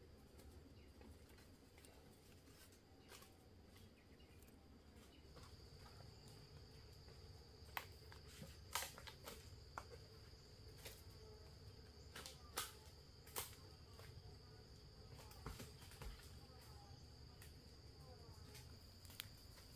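Faint steady high-pitched insect buzz, which strengthens about five seconds in, over a low background rumble, with a scattering of short faint clicks and taps.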